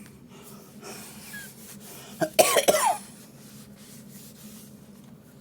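A person coughing, a quick run of several coughs about two seconds in, over a steady low hum.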